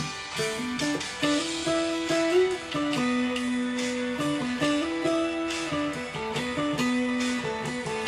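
Acoustic guitar playing an instrumental interlude: a picked single-note melody over regularly strummed chords, with no singing.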